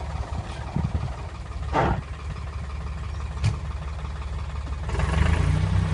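Engine running steadily at a low pitch, with a couple of short knocks. A louder, steadier engine hum comes in about five seconds in.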